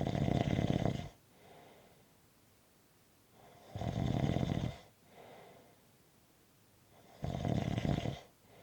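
Snoring in a slow, even rhythm: three loud snores, each about a second long and about three and a half seconds apart. Each one is followed by a softer breath.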